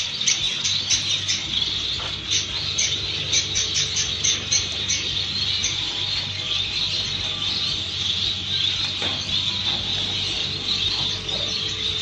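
Many caged finches chirping at once, mostly zebra finches, a dense unbroken chatter of short high calls that is busiest in the first few seconds, over a steady low hum.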